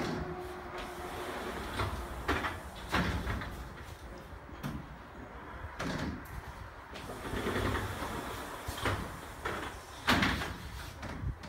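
Frameless glass partition panels sliding along their track, a rolling noise broken by several sharp knocks as panels are pushed and stop against one another; the loudest knock comes near the end.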